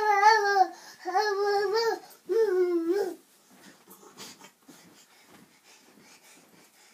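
A toddler's high-pitched voice giving three drawn-out, wavering "aah" calls in the first three seconds, then falling quiet except for faint soft knocks.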